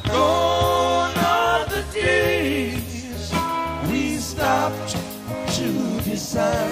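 A song: a singing voice with wavering held notes over a steady bass line.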